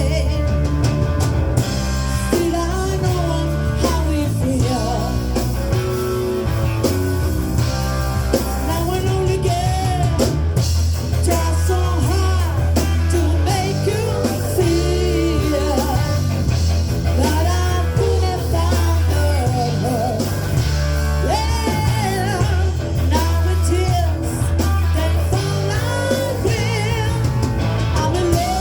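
Live rock band playing a song, with a singer's melody over drum kit, bass and guitar.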